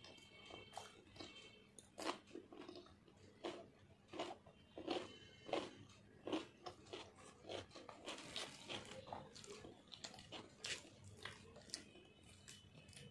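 Raw cucumber slices being bitten and chewed close to the microphone: a run of irregular, crisp crunches.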